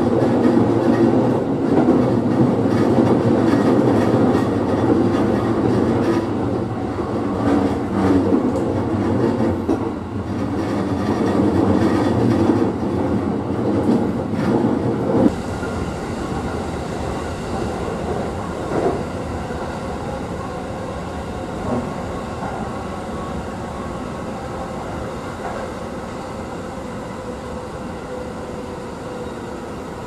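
Cabin running noise of a JR East E233 series electric commuter train at speed: a loud rumble of wheels on rail with scattered clacks. About halfway through the noise drops suddenly to a smoother, quieter hum that then slowly fades.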